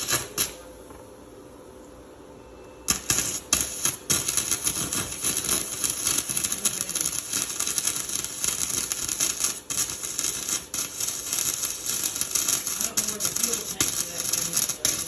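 Flux-core wire-feed welder arc crackling and sputtering steadily while a bead is run. A short burst comes at the start, then a lull, and the steady crackle begins about three seconds in.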